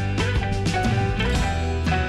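Background music: guitar-led instrumental with drums keeping a steady beat.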